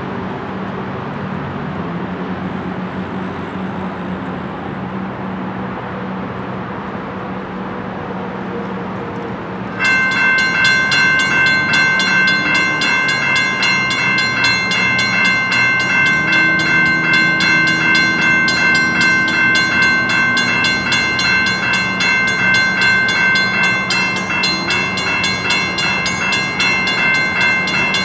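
Diesel locomotive engine running steadily. About ten seconds in, a railroad crossing bell starts ringing in rapid repeated strokes and keeps on, louder than the engine.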